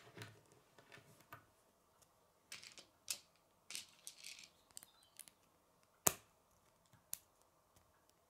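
Plastic K'nex pieces being handled and fitted together: scattered light clicks and rattles, with one sharp click about six seconds in.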